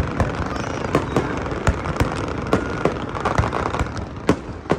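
Fireworks going off: a rapid, irregular run of sharp bangs and pops, several a second.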